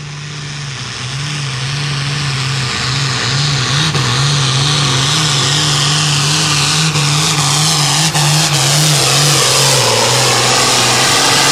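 Diesel engine of a hot farm pulling tractor running at full throttle under load while it pulls a weight-transfer sled. It grows louder over the first two seconds, then holds steady with a slightly wavering note.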